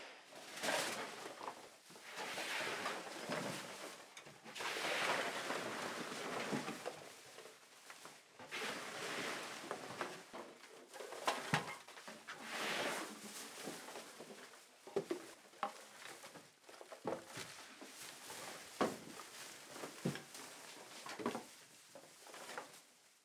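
Black plastic garbage bag rustling and crinkling as rubbish is handled and shoveled into it, with repeated swishes and scattered sharp clicks and knocks of debris.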